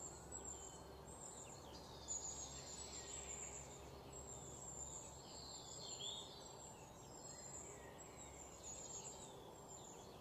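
Faint chirping of distant birds, scattered short calls over a low steady room hum.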